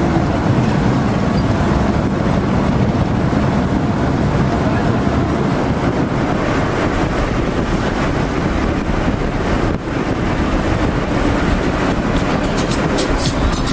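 Steady engine and road noise heard from inside a moving vehicle's cabin, with a quick run of clicks or rattles near the end.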